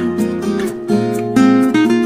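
Background music: acoustic guitar playing a plucked melody over chords.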